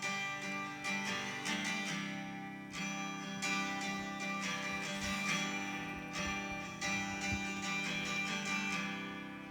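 Acoustic guitar being strummed, chord after chord ringing on.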